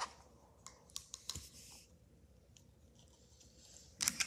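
Faint, scattered clicks and scratches from hands handling small objects, with a louder flurry of clicking and rustling near the end.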